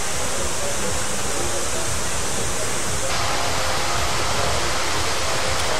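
Steady, loud rushing noise with a fluttering low end; its hiss suddenly grows brighter about three seconds in.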